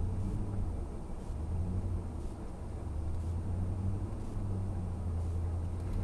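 1990 Ford F-150's 5.0 L (302) V8 running with a steady low rumble that swells a little now and then.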